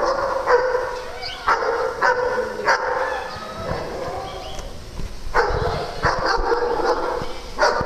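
Dogs whining and yipping: long drawn-out pitched cries in two stretches with a pause in between, and a few short sharp yips.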